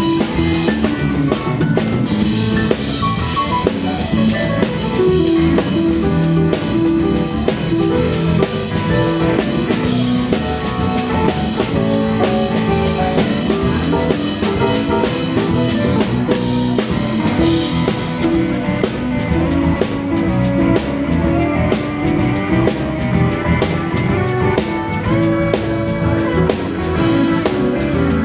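Live band playing: drum kit, electric guitar, bass guitar and keyboards together, steady and loud.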